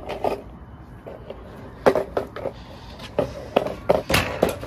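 A run of sharp knocks and clatters as an electric scooter is hit and kicked on concrete. There is one loud knock about two seconds in, then several more, the loudest a little after four seconds.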